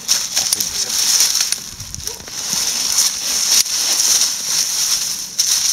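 Dry, withered Jerusalem artichoke stalks rustling and crackling as the plant is gripped and pulled out of the ground, with soil breaking loose around the tubers; a dense hiss with scattered sharp ticks.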